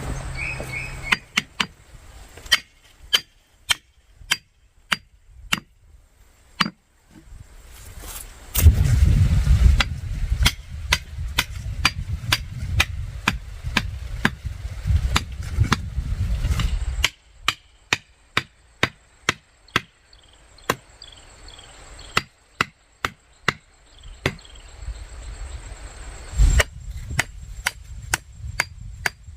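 Steady series of sharp chopping strikes, about two a second, with a low rumble under them through the middle.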